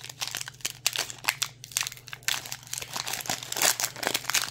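Shiny Lorcana trading-card booster pack wrapper being torn open and crinkled in the hands, a quick run of sharp crackles.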